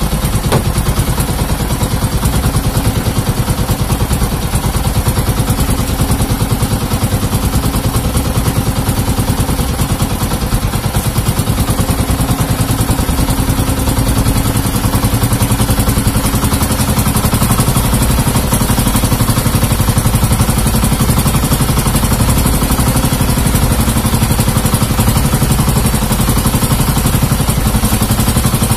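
Engine of a motorized outrigger fishing boat running steadily and loud, with an even, rapid beat.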